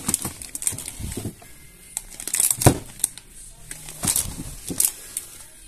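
Crinkling, rustling and sharp taps of items being handled up close, a blue item knocked and rubbed against a printed storage box, with the loudest sharp knock about two and a half seconds in.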